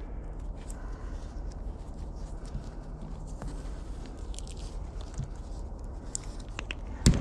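Hands wrapping black electrical tape around a bundle of wiring-harness wires: small crinkling and rustling of tape and wires, with a sharp click near the end, over a low steady hum.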